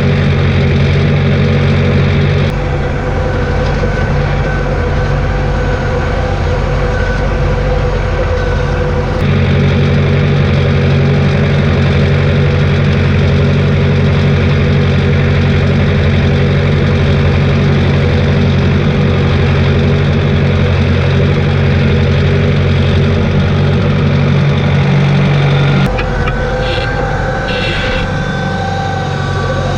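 Massey Ferguson tractor engine running steadily under load while pulling a plough through the field. Its note shifts slightly a few times.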